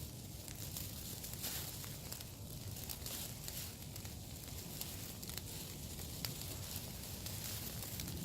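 Steady hiss of light rain falling on leaves and the shelter, with a few faint scattered ticks.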